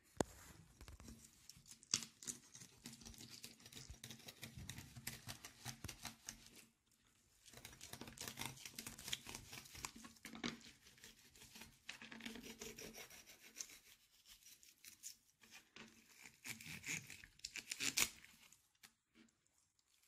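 A thin fillet knife cutting through a trout along its backbone on a plastic cutting board, making a scratchy, rasping run of fine clicks as the blade works through flesh and rib bones. The rasping stops briefly about seven seconds in and eases off again in the second half, with a sharp tick about two seconds in and another near the end.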